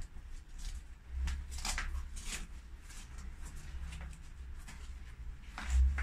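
Leather suit and gloves rubbing and scraping in short rustles as the leg of a one-piece motorcycle leather suit is worked down over a riding boot, with dull low bumps from the handling, the loudest just before the end.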